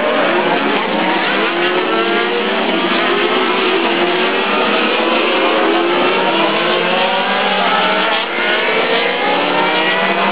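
A pack of Ferrari race cars passing at full throttle. Several engines sound at once, each climbing steadily in pitch as the cars accelerate through the gears.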